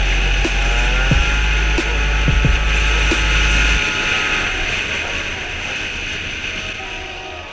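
Two-stroke 50cc scooter engine (MBK Nitro with a Doppler cast-iron kit and Doppler S3R exhaust) running while riding, its pitch rising about a second in and then holding steady. The sound fades down over the last few seconds.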